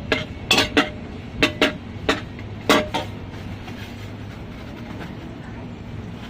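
A metal cooking utensil clanks against a pan about eight times, in quick irregular knocks that ring briefly. After about three seconds the knocks stop, leaving a steady low hum.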